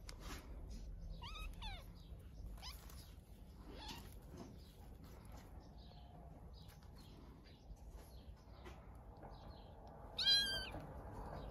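Kittens play-fighting, with one short, loud kitten cry near the end and a few quieter cries earlier.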